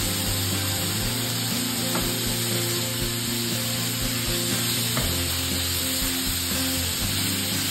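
Cubes of steak sizzling on a Blackstone flat-top griddle as sauce is poured on and they are stirred with a spatula, with a couple of light spatula clicks. Background music plays underneath.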